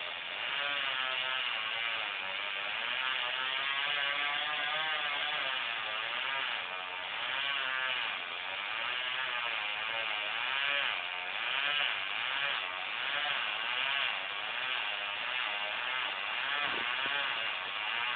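Chainsaw cutting into a tree trunk, running steadily with its engine pitch rising and falling as it works through the cut.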